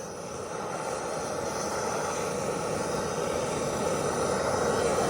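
A handheld torch flame running with a steady hissing roar, slowly growing louder, as it heats a rusted cab mount bolt to free it.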